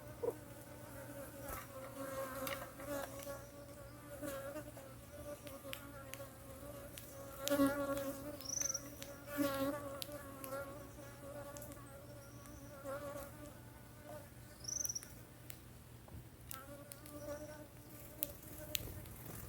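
Steady insect buzzing, swelling louder several times, with a few short high bird chirps over it.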